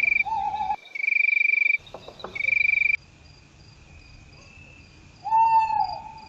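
A night-time animal chorus sound effect: loud high trills in three bursts of about a second each over the first three seconds, then a fainter steady chirring. About five seconds in, a louder held call stands out for under a second.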